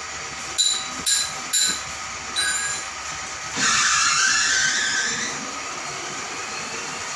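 Portable oxy-fuel gas cutting carriage running on its electric drive motor, set to travel slowly: a steady hum, with four short metallic clinks in the first two and a half seconds and a loud hiss lasting about a second and a half midway.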